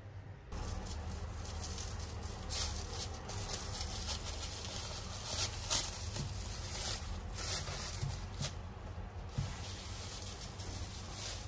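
Plastic cling film crinkling and rustling as it is peeled off a mochi ice cream ball, with irregular sharper crackles, the loudest about halfway through.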